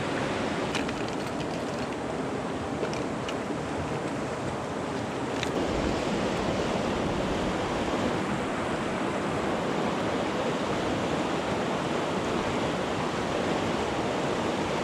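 Steady rushing of river water over a small rapid, heard close by from a canoe, with a few faint taps.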